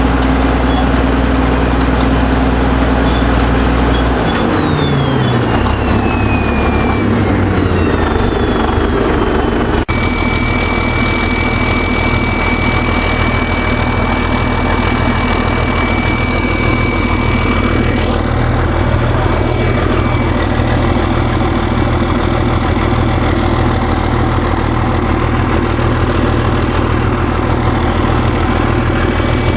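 Caterpillar D9G bulldozer's turbocharged V8 diesel engine running. About four seconds in its pitch falls away over several seconds, then it settles into a steady run with a high whine over the engine note.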